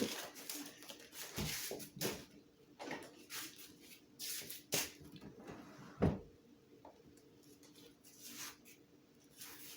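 Irregular knocks, clicks and rustles of things being handled, with a louder thump about six seconds in, then quieter near the end.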